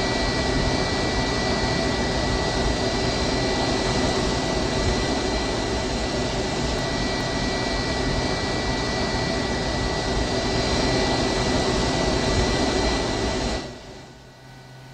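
Steady loud rush of a jet airliner with a thin high whine running through it. Near the end it drops off sharply to a low hum.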